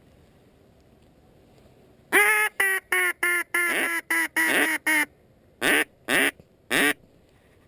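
Duck call blown in a hen-mallard quacking sequence, loud and close: a run of eight quacks about two seconds in, a short pause, then three more spaced quacks.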